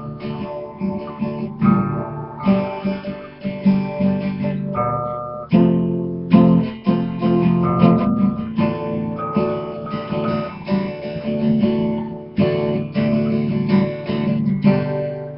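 Acoustic guitar strummed and picked, chords mixed with single picked notes, each struck sharply and left to ring. It is played close to the laptop's microphone and overloads it, so the recording clips.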